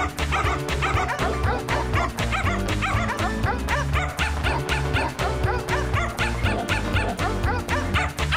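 Upbeat background music with a steady beat and bass line, with short dog yips and barks repeating through it in time with the beat.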